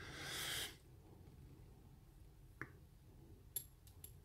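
Faint handling of a lock being taken apart: a short soft rustle at the start, then a single sharp click about two and a half seconds in and a few small ticks of metal parts near the end.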